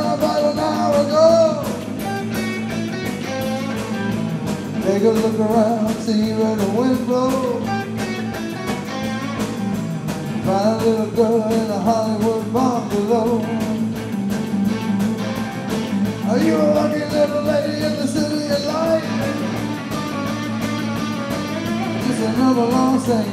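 Live rock band playing electric guitars and a drum kit, with a man singing over them.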